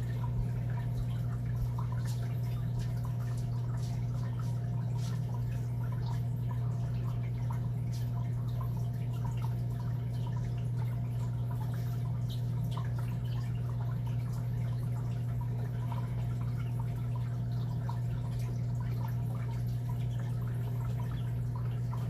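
A steady low hum, with faint irregular ticks or drip-like clicks over it.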